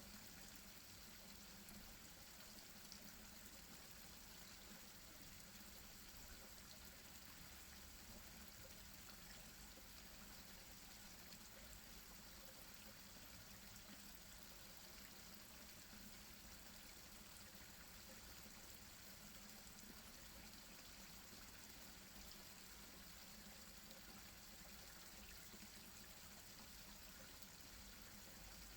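Faint, steady splashing and trickling of a small garden-pond waterfall running into the pond.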